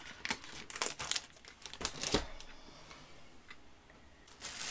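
Crinkling of a clear plastic packet as a clear-stamp set in its cellophane sleeve is handled and put aside: a run of short crackles over the first couple of seconds, with a light knock about two seconds in, then quieter.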